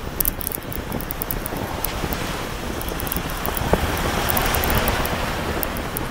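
Wind rushing over the microphone with a low rumble, swelling somewhat past the middle, with scattered light ticks and rattles.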